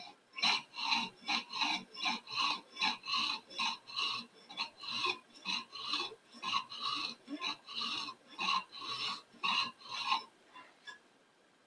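Steel chisel back rubbed back and forth on a 1000-grit diamond sharpening stone over a ruler laid on its edge (the ruler trick), about three rasping strokes a second, stopping about ten seconds in. The strokes are grinding the burr and lacquer off the business end of a new 6mm mortise chisel.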